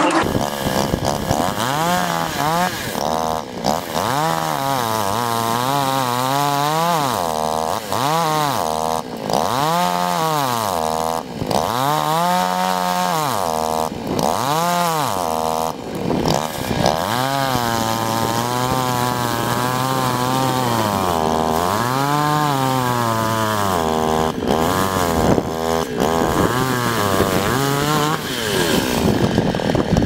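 Small petrol chainsaw revved up and down over and over, its pitch rising and falling every second or two, with a few stretches held at a steady speed while it cuts through a log. The engine note stops near the end.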